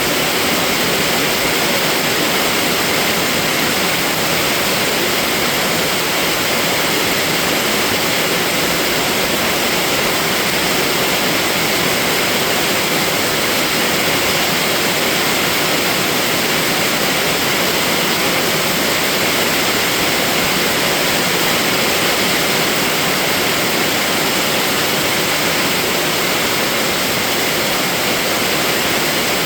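Steady rain, a dense, even hiss with no single drops standing out and no let-up.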